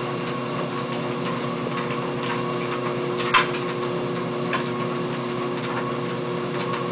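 Motorized treadmill running with a steady hum, while a dog's paws tap lightly on the moving belt. One sharper, louder click about three and a half seconds in.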